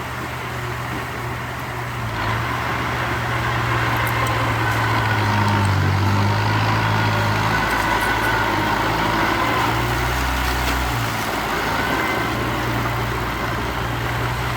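Heavy construction machine's diesel engine running, growing louder about two seconds in, its low tone shifting up and down with a faint higher whine above it.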